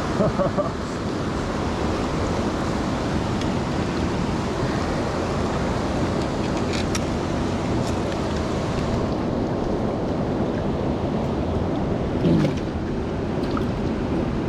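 Steady rushing of a fast-flowing river running over rocks, with a few faint clicks around the middle.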